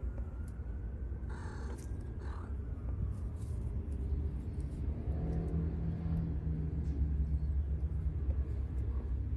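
A steady low rumble that grows a little louder after about five seconds, with two short higher-pitched sounds about one and two seconds in.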